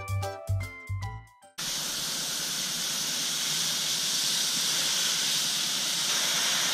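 Background music ends abruptly about a second and a half in; then a garden hose nozzle sprays water onto soil at the base of a plant, a steady hiss.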